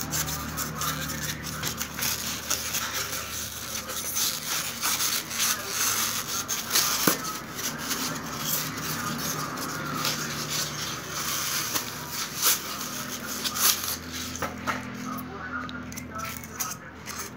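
Thermocol (expanded polystyrene foam) sheet being handled and pressed by fingers: a continuous rubbing and crackling of the foam, with many small sharp snaps scattered through it.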